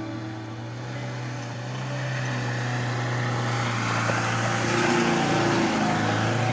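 A Great Wall Hover SUV driving past on a rough mountain track. Its engine and tyre noise swell to loudest about five seconds in, over background music.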